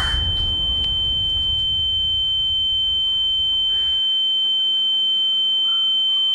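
A steady, high-pitched electronic beep tone held unbroken, over a low rumble that stops about four seconds in.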